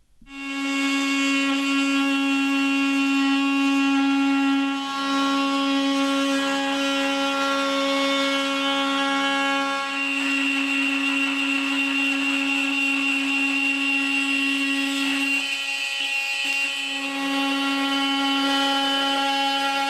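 Bosch GOP 250 CE oscillating multi-tool starting abruptly and running with a steady high-pitched buzz. Its tone briefly weakens about three-quarters of the way through, then comes back.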